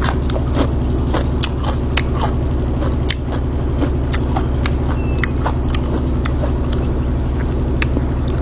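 A steady low motor hum, with irregular light clicks and knocks over it, a few each second.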